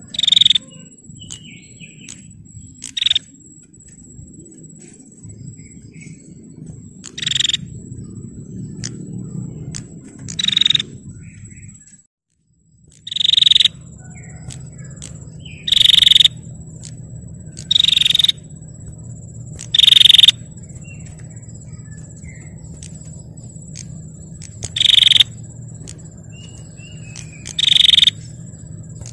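Female prinia (prenjak) giving short, loud, scratchy trilling calls, repeated about ten times at intervals of two to five seconds; this is the calling used as a lure to make male prinias answer. A thin, steady high whine runs underneath, and the sound cuts out completely for about a second roughly twelve seconds in.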